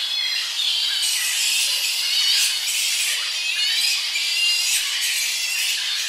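Tonga flying fox colony calling at the roost: a dense, continuous chatter of overlapping high-pitched calls, with birds singing in the background.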